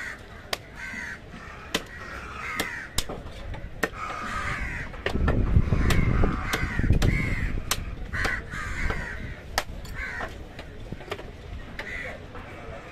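Crows cawing over and over, mixed with sharp knocks of a heavy knife chopping fish on a wooden block. A low rumble swells for about two seconds around the middle.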